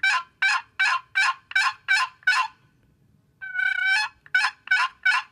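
Wooden turkey box call (cherry box, purple heart lid) worked by hand, yelping like a hen turkey: a run of seven short, evenly spaced raspy yelps, a pause of about a second, then a longer drawn-out rasping note and another run of yelps.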